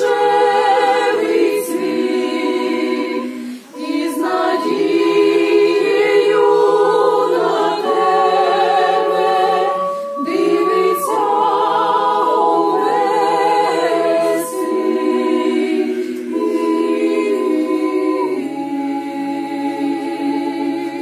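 Parish choir of mostly women's voices singing a Ukrainian Christmas carol (koliadka) unaccompanied, in several parts, in long phrases of held chords with short breaks about four and ten seconds in; the final chord ends near the end.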